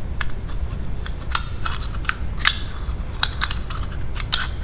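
Magnet pickup tool clicking and scraping against the inside of a steel oil filter can, about eight sharp, irregular clicks, over a low steady background hum.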